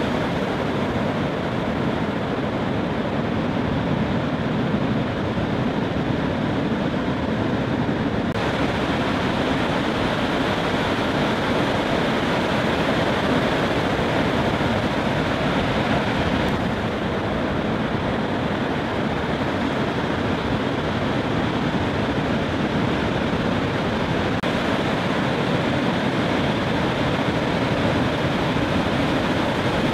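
Steady roar of breaking ocean surf, a continuous noise whose tone shifts abruptly three times, about every eight seconds.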